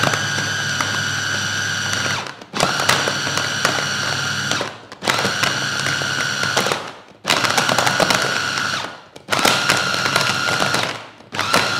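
Electric food chopper's motor pulsed in runs of about two seconds with brief pauses, six times, a steady whine as the blades churn fish paste.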